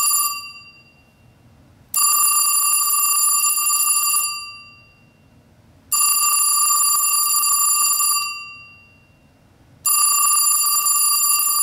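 Western Electric P1A internal telephone ringer ringing in bursts of a little over two seconds, a new ring starting about every four seconds: the tail of one ring, then rings starting about two, six and ten seconds in.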